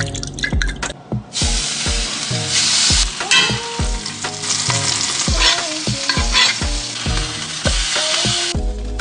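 Food frying in a hot pan, a loud sizzling hiss that starts about a second in and cuts off near the end, over background music with a steady beat.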